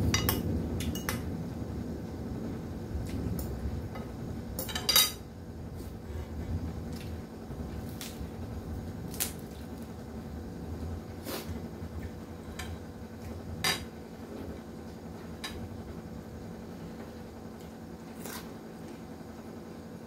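Metal spoon clinking and scraping against a ceramic plate during a meal: scattered sharp clicks every second or so, the loudest cluster about five seconds in. Low chewing and mouth sounds underneath, strongest at the start.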